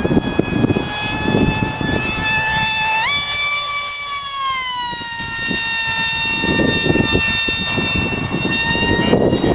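36-inch Lightning model boat running at speed: a high-pitched whine that jumps up in pitch about three seconds in, then slides back down and holds steady. Low wind rumble on the microphone underneath.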